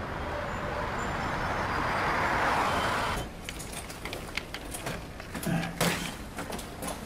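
Traffic on a city street, a passing vehicle swelling louder for about three seconds, then cut off abruptly. After that come scattered sharp clicks and rattles of keys working a door lock.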